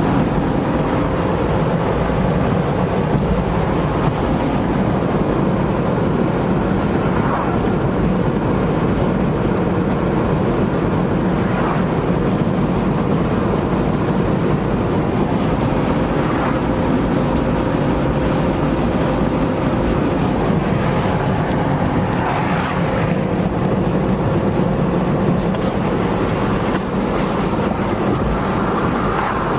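Steady low rumble of a vehicle in motion, with a faint constant hum.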